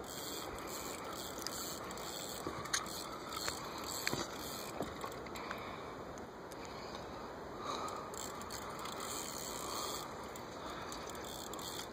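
Steady outdoor background noise with a few light clicks a few seconds in.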